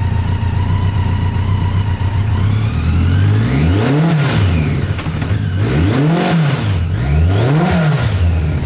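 BMW K100 1000cc inline-four motorcycle engine running with four new spark plugs fitted in place of fouled ones. It idles steadily, then is revved three times, each rev rising and falling back, about a second and a half apart.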